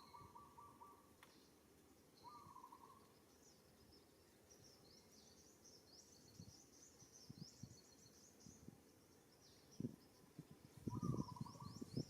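Faint outdoor ambience of birds: quick high chirping runs, and a short buzzy call repeated every few seconds. Low rustling and thumps come in near the end and are the loudest part.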